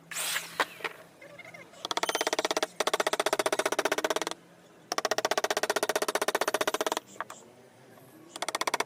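Power carving chisel hammering into wood: four bursts of rapid, even tapping, about twenty strokes a second, each burst lasting one to two seconds with short pauses between.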